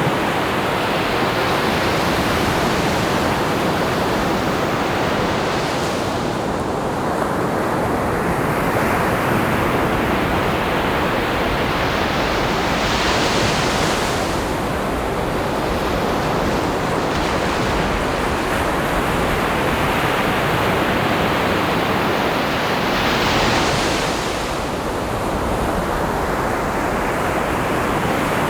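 Ocean surf: a steady wash of waves, with two waves breaking in a louder, brighter hiss, about halfway through and again a few seconds before the end.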